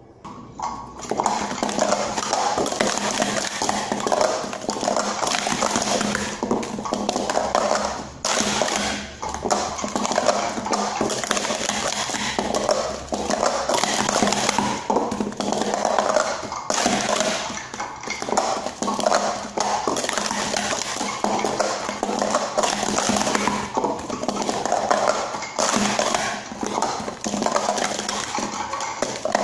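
Plastic sport-stacking cups clattering and clacking in a rapid, continuous run as they are stacked up and down on a stacking mat during 3-3-3, 3-6-3 and cycle sequences, with a few brief breaks.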